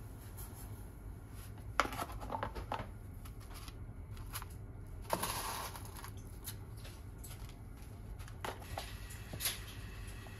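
Kitchen handling sounds while ingredients go into a pot: clicks and rustles of plastic tubs, and a longer rustle about five seconds in as dried seaweed is dropped into the water. A few sharp clicks come near the end, over a low steady hum.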